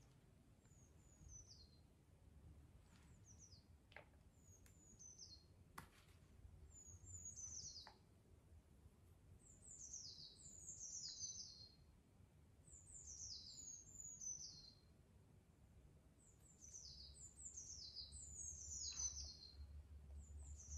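Faint, high chirps of a small bird that fall in pitch, repeated in quick groups of two or three and coming more often in the second half, with a few soft clicks between them.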